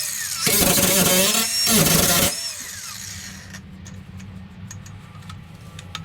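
A power tool runs in two bursts, a brief one and then one of about two seconds, with a high whine falling as it winds down after each. Some light clicks and knocks follow.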